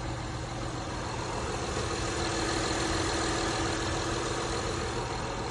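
Car engine idling, a steady drone.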